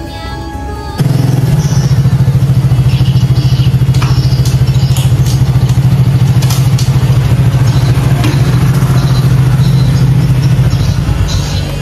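Small underbone motorcycle engine idling with a steady, rapid pulse, starting abruptly about a second in; the sound fades away near the end.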